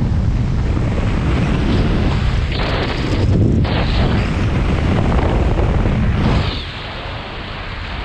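Loud rush of airflow buffeting the microphone during fast speedflying flight close to a slope, surging and easing in gusts, then dropping somewhat about six and a half seconds in.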